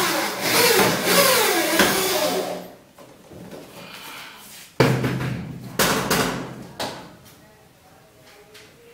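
Corded electric drill driving a screw through the cabinet's back panel into the wall, its motor speed rising and falling with the trigger for about two and a half seconds. A second loud burst starts suddenly about five seconds in and lasts about two seconds.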